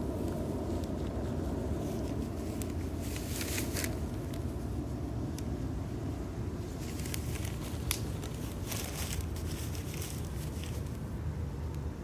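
Wood fire of dry sticks burning in a metal fire pit, crackling with scattered pops and a sharper snap about eight seconds in, over a steady low rumble.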